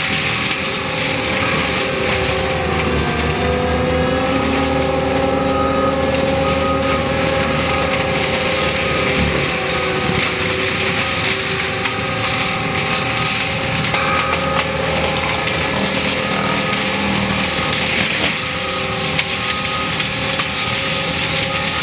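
ASV 135 compact track loader running a forestry mulcher head: the diesel engine holding steady under load while the drum's teeth grind through wood and brush, the engine pitch sagging briefly about three seconds in.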